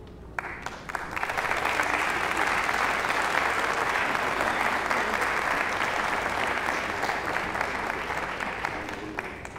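Audience applauding: many hands clapping, starting about half a second in, swelling quickly to a steady level, and tapering off near the end.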